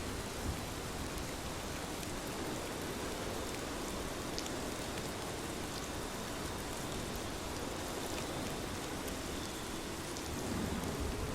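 Steady rain falling on a surface, with scattered drop ticks. About a second before the end a low sound rising in pitch joins in.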